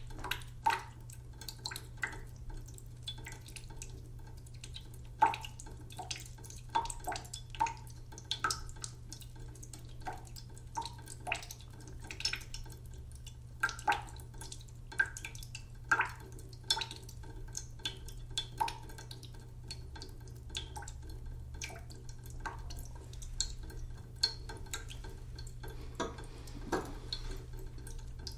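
Water dripping from a leaky tap: irregular drops plinking into water and onto a sink, a few a second at times, over a steady low hum.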